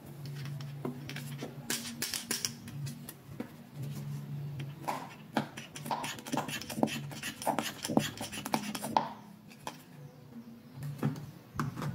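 Hard plastic toy doctor-set pieces (a toy blood-pressure gauge with its squeeze bulb, and a stethoscope) clicking and rattling as they are handled, with a dense run of sharp clicks from about two to nine seconds in.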